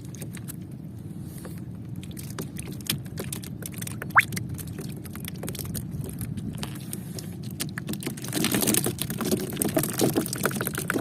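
Boat engine running steadily under a fast patter of small clicks. A brief rising squeak comes about four seconds in, and from about eight seconds a louder hissing rush sets in.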